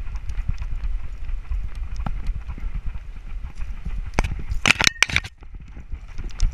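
Beagle's footfalls and body movement knocking through a harness-mounted GoPro: a dense, irregular run of low thumps and small clicks as the dog moves. About four seconds in comes a louder rustling burst, followed by a short quieter spell.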